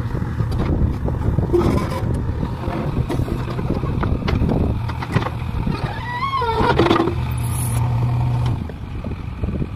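JCB 3DX Eco backhoe loader's diesel engine running steadily under load while the backhoe arm digs. A brief wavering high tone rises and falls about six seconds in.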